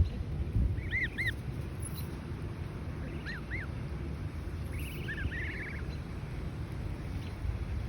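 Gosling peeping: short, high, arching peeps in pairs about every two seconds, with a faster trilling run of peeps about five seconds in, over a steady low rumble.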